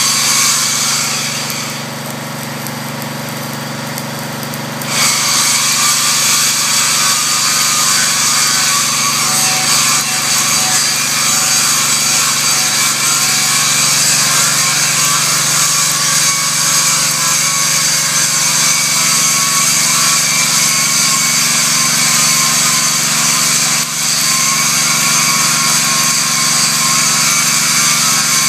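Stick-welding arc from a 1/8-inch 7018 electrode sizzling steadily as the rod is run into steel tabs. It goes quieter for about three seconds shortly after the start, then returns to full strength.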